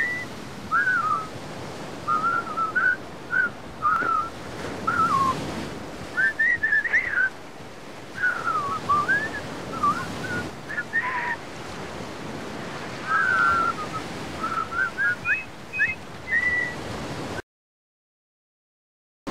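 A person whistling a slow, wandering tune in short phrases over a steady hiss of surf. Near the end the sound cuts off to silence.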